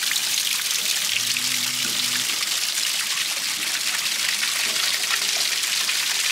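Small mountain stream trickling and splashing over ice-crusted rocks, with water dripping off icicles: a steady hiss of running water full of tiny splashes.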